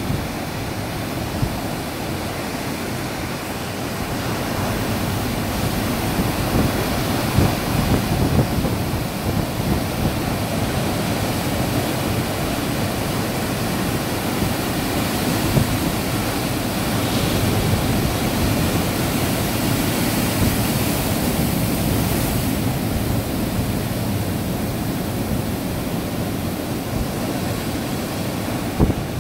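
Ocean surf breaking and washing ashore, a steady rush of whitewater, with wind buffeting the microphone.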